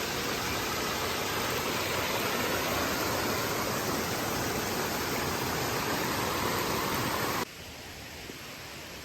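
Waterfall rushing: a steady, even rush of falling water that drops abruptly to a quieter rush about seven and a half seconds in.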